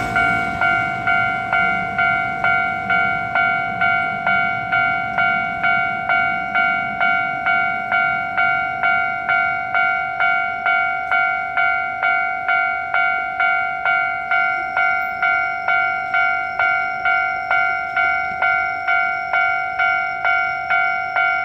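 Japanese level-crossing warning bell ringing steadily, about two strikes a second. The low rumble of a train fades out in the first seconds.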